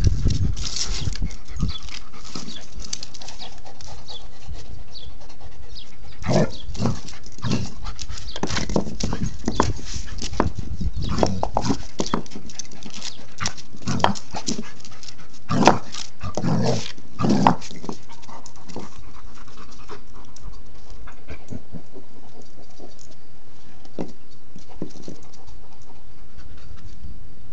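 A dog panting while it paws and nudges a rock on concrete, the rock scraping and knocking on the ground in a run of clatters through the middle stretch that thins out towards the end.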